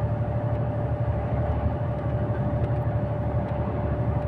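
KamAZ 4308 truck driving, heard from inside the cab: a steady diesel engine and road rumble with a steady high whine over it.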